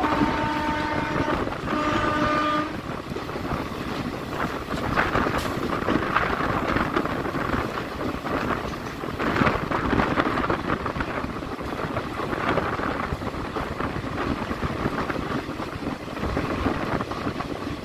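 Train horn sounding two blasts, the second shorter, followed by the steady rumble and wheel clatter of the moving train.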